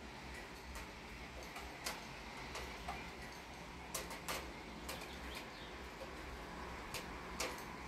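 Steady rain hiss with about nine irregular, sharp ticks of drops striking a hard surface close by.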